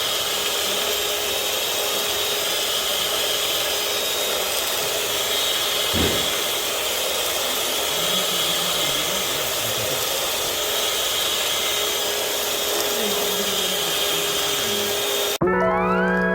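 Steady whir of an electric motor with rushing air, like a household appliance running, with one soft knock about six seconds in. It cuts off suddenly near the end as background music begins.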